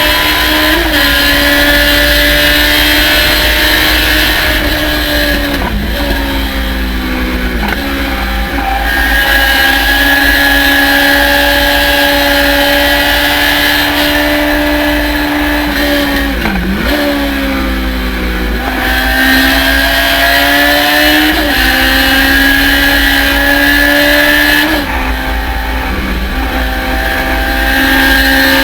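Thunder Roadster race car engine running hard at high revs; the pitch dips sharply and climbs back again about five times.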